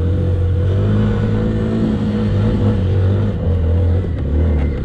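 Police patrol motorcycle's engine running as the bike rides over rough grass and dirt, the revs rising and falling slightly. A few light knocks near the end.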